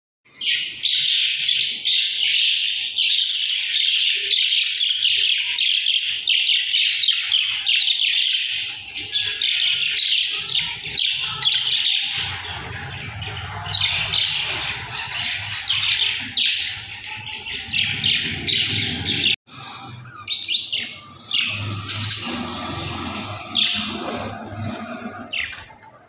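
A flock of budgerigars chattering and warbling, a dense run of rapid chirps, loudest in the first half. From about halfway a low rumble runs underneath, and there is a brief break about two-thirds of the way through.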